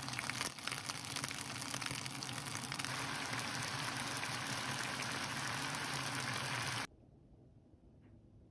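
Bok choy and shrimp sizzling steadily as they stir-fry in a hot pan, with a few sharp clicks in the first second. The sizzling stops abruptly about seven seconds in.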